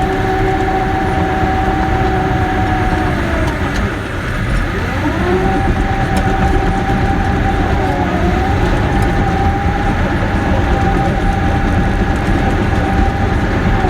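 Caterpillar D6K bulldozer running with a steady high whine over its diesel engine. About four seconds in the pitch drops sharply and climbs back, and it dips briefly again about eight seconds in.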